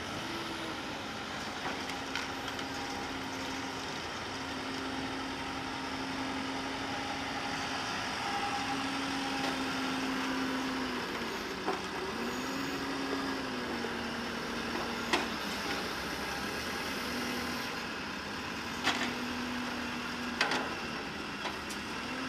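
Wacker Neuson compact wheel loader's diesel engine running under hydraulic load, its pitch rising and falling several times as it lifts and carries a bucket of debris. A few sharp metal knocks in the second half.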